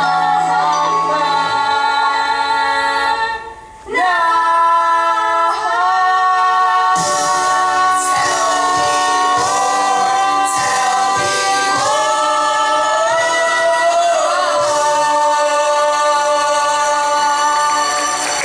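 A chorus of young voices singing long held notes in harmony over a musical accompaniment. The music dips briefly about three and a half seconds in, then a steady beat joins about seven seconds in.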